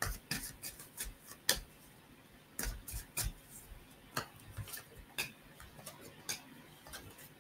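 A deck of tarot cards being shuffled by hand: sharp, irregular clicks and snaps as the cards strike each other, a few each second, with a short lull about two seconds in.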